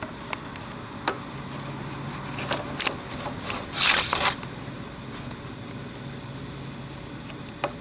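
Several light clicks, then a loud hissing burst lasting about half a second roughly four seconds in, from handling and working a break-barrel spring air rifle, against a steady low hum.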